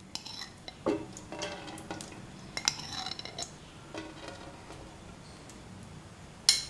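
A metal spoon clinking and scraping against a metal pan while melting ghee is stirred, with several separate clinks and the loudest one near the end.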